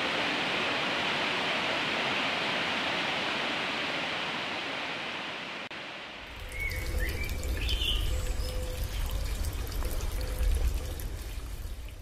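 Waterfall rushing over rocks in a steady hiss that fades out about halfway. A second recording of rushing water then comes in with a deep rumble and a few bird chirps.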